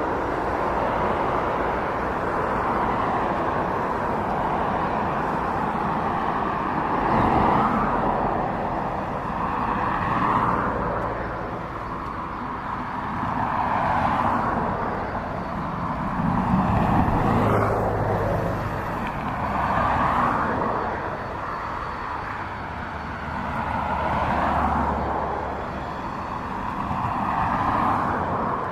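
Outdoor vehicle noise: a steady rushing that swells and fades every three to four seconds, with a low hum coming and going underneath.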